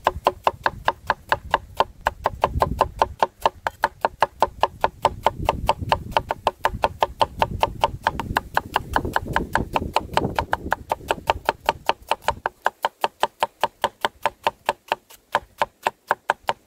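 Cleaver chopping onion on a wooden cutting board: steady, quick knocks of the blade on the board, about five a second, with a low rumble under them that stops about twelve seconds in.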